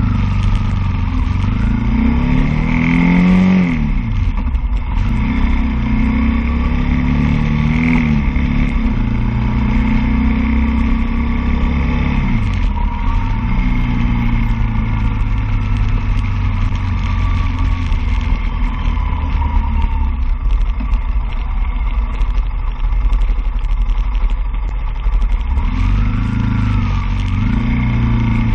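Road traffic: cars and vans drive close past, their engine notes rising and falling as each goes by, over a steady low rumble.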